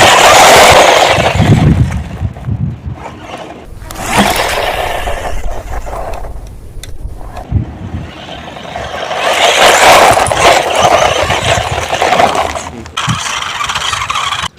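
Toy RC car driving, its motor and wheels making a loud scraping rush. The sound swells twice: near the start and again about two-thirds of the way through.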